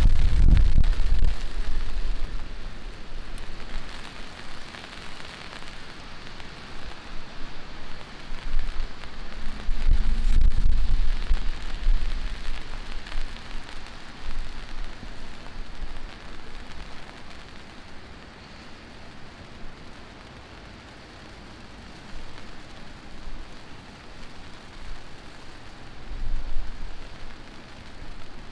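Heavy rain falling steadily, a continuous hiss, with a low rumble right at the start and a louder one about ten seconds in, and a weaker one near the end.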